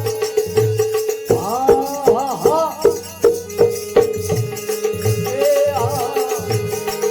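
Live devotional folk music with no singing: a held drone note under a steady drum beat. A melody line of quick rising-and-falling notes plays about a second in and fades out around four seconds.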